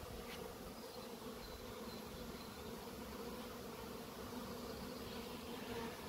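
Honeybees flying around a hive entrance, a steady buzzing hum.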